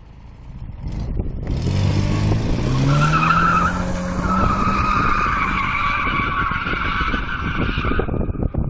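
A car drifting on asphalt. About a second and a half in, the engine revs up and holds high, and the tyres squeal for about five seconds, breaking off briefly once and stopping near the end.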